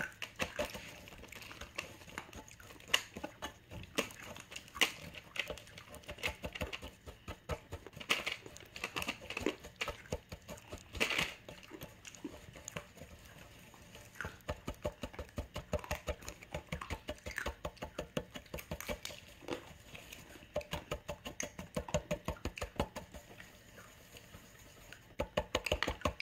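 Wooden chopsticks stirring melting sugar in a small metal saucepan, in quick irregular clicks and scrapes against the pan. Early on the sugar is still grainy; by the end it has melted into a smooth syrup.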